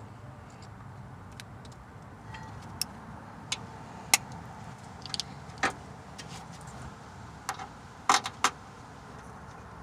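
Scattered sharp clicks and light metallic clinks from hand tools and parts being handled while a new ABS wheel speed sensor and its mounting clips are fitted, over a faint steady hum. The loudest is a quick cluster of clicks near the end.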